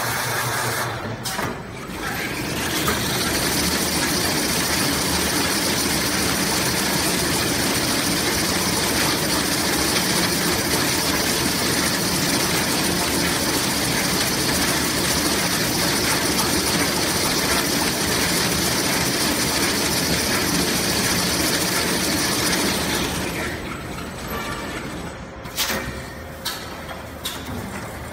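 Semi-automatic toilet paper rewinding machine running at speed, a steady mechanical noise with a high whine. It winds down about three-quarters of the way through, followed by several sharp clicks and knocks.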